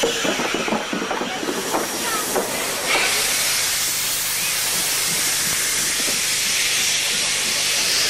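Steam locomotive moving slowly past at close range: clanking of its rods and running gear for about the first three seconds, under a hiss of escaping steam. From about three seconds in, a loud, steady hiss of steam blowing from the open cylinder drain cocks.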